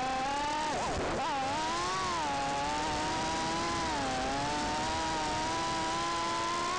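Emax Tinyhawk 2 Freestyle micro FPV quadcopter's brushless motors whining in flight, the pitch rising and falling with throttle. There is a quick drop and recovery in pitch about a second in, then a steadier whine with slow swells.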